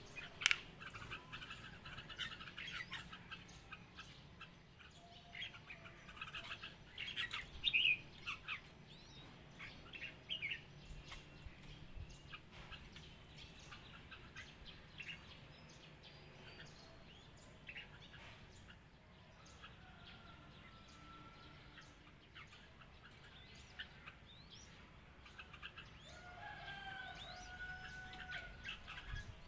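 Red-whiskered bulbuls chirping and calling in quick bursts, busiest in the first ten seconds, then a few short whistled phrases later on.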